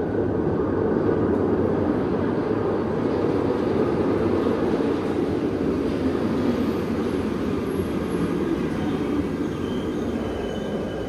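Classic Glasgow Subway train rumbling steadily through the tunnel as it approaches and runs into the station, with a thin high wheel or brake squeal setting in near the end as it arrives.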